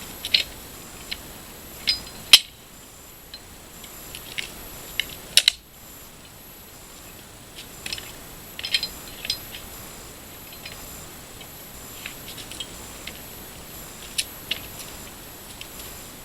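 Wooden pallet being pried apart with a Pallet Buster bar: irregular sharp cracks, clicks and knocks from boards and nails giving way and metal on wood. The two loudest come about two and five and a half seconds in.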